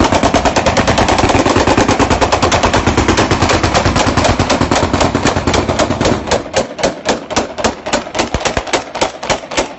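AK-47 assault rifles firing on full automatic in a long run of rapid shots, about ten a second. The shots grow sparser and more separate after about six seconds.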